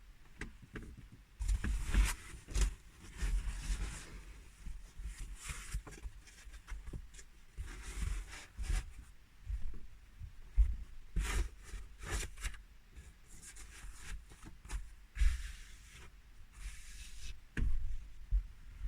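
Irregular rustling, scraping and low knocks of things being handled, some of them sharp clicks, with brief swishes of noise between them.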